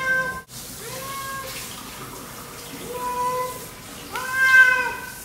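Sphynx cat meowing loudly and repeatedly in protest at being bathed and wanting out of the water: four long, drawn-out meows, the loudest near the end.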